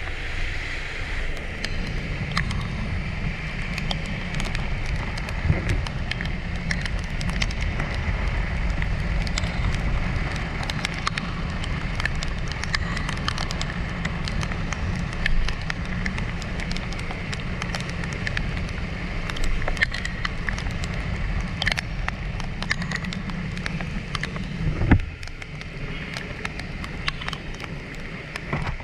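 Honda ADV150 scooter riding in the rain: a steady low drone of its single-cylinder engine and wind, with hiss from the wet road and many scattered ticks. A few seconds before the end the low drone eases off.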